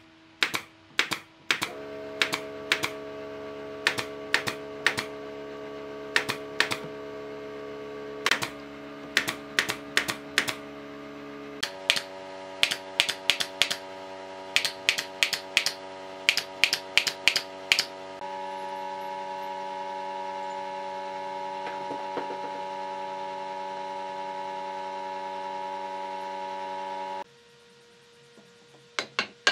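Cordless drill running with a steady whine that steps up in pitch twice, broken by short runs of sharp clicks for the first two-thirds. The whine then runs on steadily and cuts off near the end.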